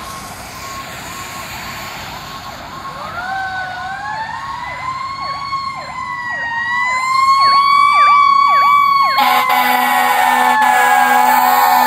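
Sirens on a 1982 Hahn fire engine running code: an electronic siren in a rapid yelp throughout. About three seconds in, a Federal Q2B mechanical siren joins it, winding up in pitch and then slowly coasting down. About nine seconds in, air horns sound a long, loud blast over both sirens.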